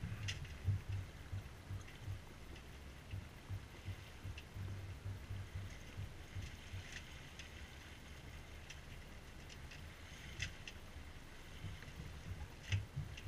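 Water splashing and gurgling along the hull of a C&C Mirage 24 sailboat under sail, with wind buffeting the camera microphone and a few sharper splashes scattered through.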